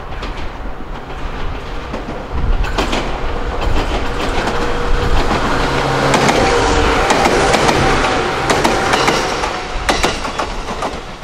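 A Fujikyu Railway electric train going past: its rumble swells about two seconds in, is loudest in the middle and eases toward the end, with wheels clacking over rail joints and a steady whine on top.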